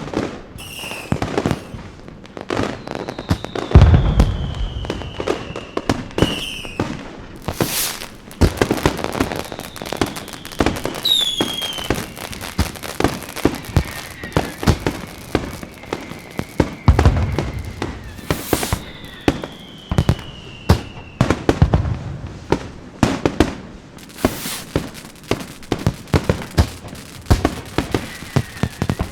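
Fireworks going off: continuous rapid crackling and popping, a few deep booms of bursting shells, and three whistling fireworks whose whistles fall slowly in pitch.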